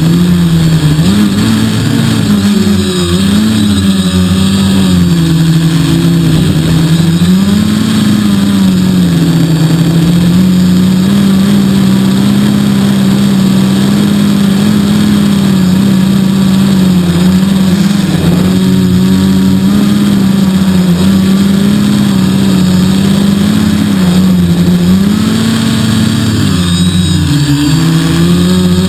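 3DR quadcopter's electric motors and propellers humming steadily, the pitch rising and falling as the motors change speed to hold the craft against strong wind gusts. The pitch wavers most in the first several seconds and again near the end, and is steadier in between.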